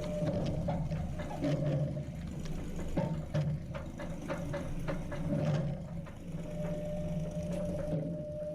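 A tractor engine running steadily at idle, with scattered metallic knocks and clanks over it.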